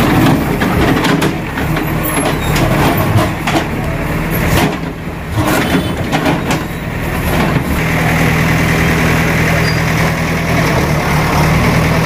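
JCB backhoe loader's diesel engine running steadily, with knocks and scrapes as its bucket works through broken concrete in the first half or so.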